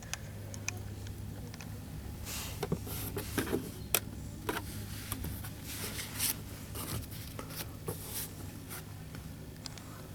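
Light scraping, rubbing and clicking of things being handled, scattered irregularly over a steady low hum.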